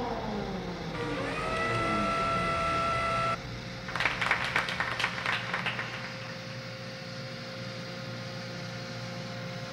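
Motor-driven machinery: a whine falls in pitch as it winds down, then a motor spins up to a steady high whine that cuts off abruptly a little over three seconds in. A burst of rapid clattering clicks follows, then a steady hum to the end.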